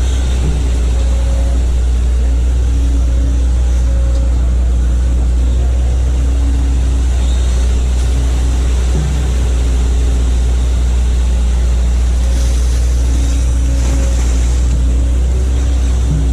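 Hitachi hydraulic excavator's diesel engine running steadily with a loud, even low hum.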